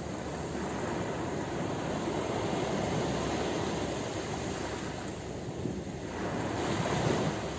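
Ocean surf: a steady rushing wash of waves, swelling as a wave comes in near the end.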